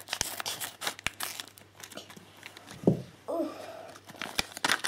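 Crinkling and tearing of a thin plastic Lego minifigure blind bag as it is torn open by hand, with scattered crackles and small clicks of handling.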